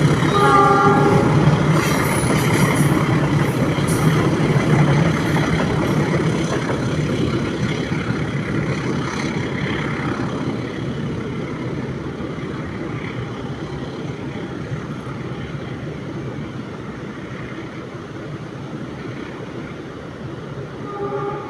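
Train rolling slowly across a bridge, a dense rumble and clatter of wheels on rails that slowly fades over the course of the sound. A brief pitched tone sounds at the start and again near the end.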